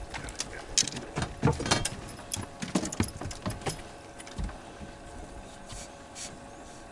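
Quick clicks, knocks and rattles of gear and feet on a bass boat's deck while a hooked fish is fought and landed, over a faint steady hum. The clatter is thickest in the first few seconds, with a couple of softer knocks near the end.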